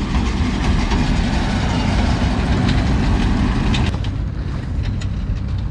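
Tractor engine and round baler running: a steady low drone with broad machine noise over it. A couple of sharp clanks come near the four-second mark, and then the higher machine noise drops away while the engine drone goes on.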